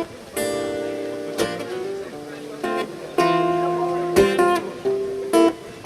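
Acoustic guitar strumming chords as a song's introduction, about six strokes, each chord left to ring out.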